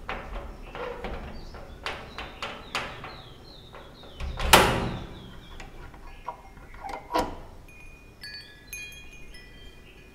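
Key clicking and rattling in a stiff door lock that seems jammed, with a loud knock of the door about four and a half seconds in and another a few seconds later as it is worked open. Near the end, chime-like ringing tones.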